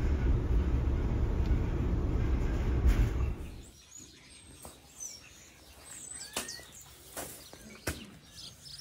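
Low steady road and engine rumble inside a moving pickup truck's cabin, cutting off suddenly about three seconds in. After it, much quieter: small birds chirping now and then, with a few sharp clicks.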